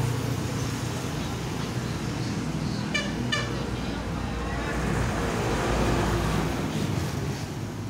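Road traffic running past, with two short horn beeps in quick succession about three seconds in, and a vehicle passing louder a couple of seconds later.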